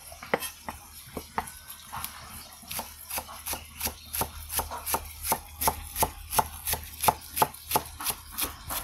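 Large kitchen knife chopping a bunch of green onions on a round wooden chopping board: a steady run of sharp chops, a few spaced strokes at first, then about three a second.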